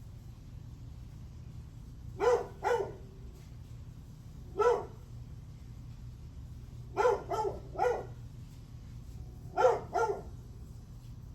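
Dog barking: eight short barks in bursts of one to three, a couple of seconds apart, over a steady low hum.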